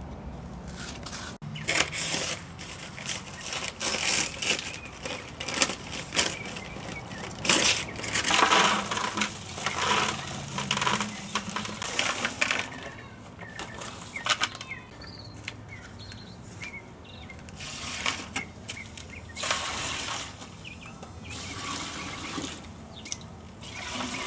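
Paper sack of dry concrete mix rustling and crinkling as the powder is poured out into plastic five-gallon buckets. The rustle and hiss come in uneven spells, with a quieter stretch in the middle.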